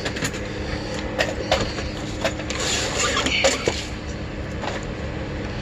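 Hands rummaging through small electrical and hardware parts (switches, plug ends), with scattered clicks and clatters over a steady background hum.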